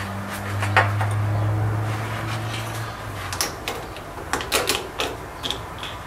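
Wire rack of a countertop dishwasher being slid out and handled: a string of clicks and knocks, most of them in the second half. Under them a steady low hum stops about three seconds in.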